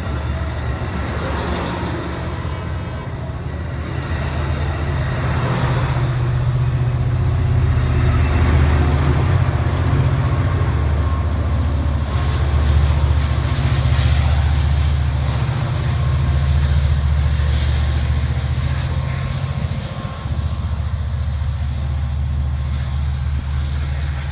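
EMD F59PHI diesel-electric locomotive pushing a bilevel passenger train out of the station. Its 12-cylinder 710 prime mover runs under load with a strong low engine note, over the roll of the cars' wheels on the rails. The sound grows as the locomotive comes past and is loudest in the middle, then eases a little as it pulls away.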